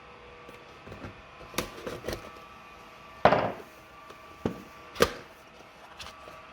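A processor's retail box being handled and opened: several sharp clicks and taps, and a short scraping tear of the packaging about three seconds in.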